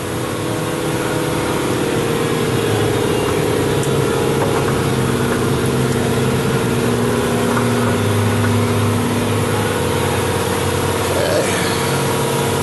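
A motor running steadily: an even droning hum whose tone shifts slightly about two seconds in and again around five seconds.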